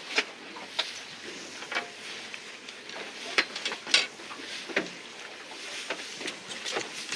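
Handling noise: a jacket's fabric rustling against the microphone, with irregular light clicks and knocks over a soft hiss. The strongest knock comes about four seconds in.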